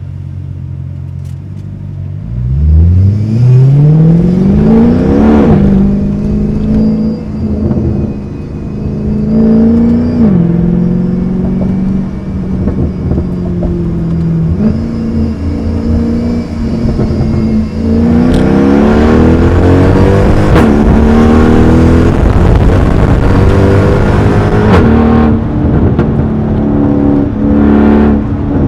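Mercedes-AMG E63 V8 with a loud aftermarket exhaust accelerating hard: from a low steady rumble the revs climb sharply from about two seconds in, then drop at an upshift, followed by several more pulls and shifts with the pitch rising and falling, and a second hard climb about two-thirds of the way through.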